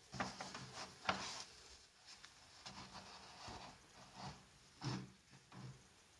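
A paperback book being picked up and its paper pages flipped through by hand: a run of rustles and swishes, the louder ones near the start, about a second in and about five seconds in.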